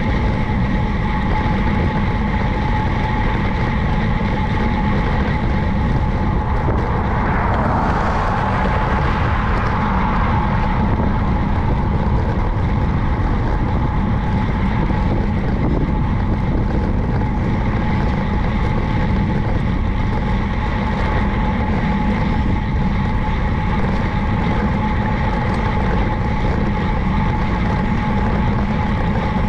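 Wind and road noise on a cycling camera's microphone during a road ride: a loud, steady rush with a constant hum running under it. There is a brief swell about eight seconds in.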